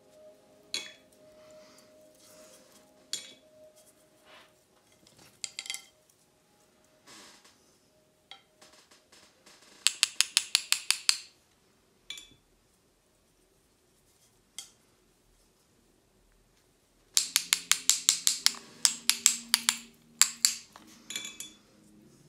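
Paintbrush clinking rapidly against the side of a glass water pot as it is rinsed, in two runs of quick taps about ten a second, with scattered single clicks between.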